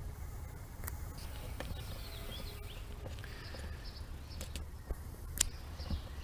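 Outdoor background: a steady low rumble with faint bird chirps, and a few sharp clicks, the loudest about five seconds in.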